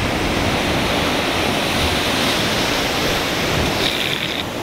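Steady rush of water and wind as a small open boat runs through breaking surf, with a brighter hiss about four seconds in.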